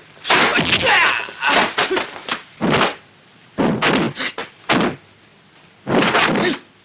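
Kung fu film fight sound effects: rapid punch and block impact hits in three bursts, with the fighters' shouts and grunts among them and short pauses between the bursts.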